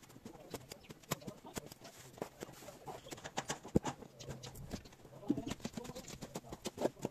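Irregular clicks, knocks and scrapes of a plastering trowel working mortar in a metal wheelbarrow, with a bird calling a few times in the later part.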